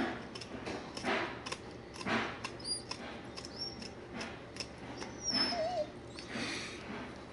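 Dog yelping in short cries about once a second, with a thin wavering whine about five and a half seconds in.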